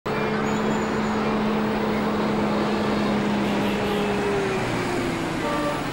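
Street traffic noise, a steady wash of vehicle sound. One engine's hum holds steady, then fades and falls in pitch after about four seconds.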